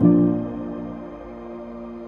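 Background music: soft ambient chords, a new one coming in at the start and slowly fading.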